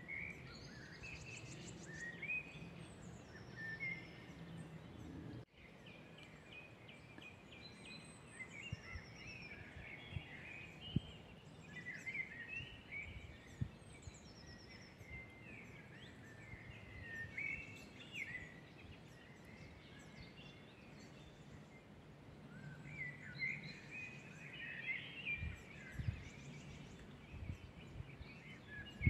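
Several woodland songbirds singing at once, with overlapping chirps and short warbled phrases and now and then a high, thin trill, over a steady faint outdoor hiss. A few brief low thumps stand out, and the sound cuts out for a moment about five seconds in.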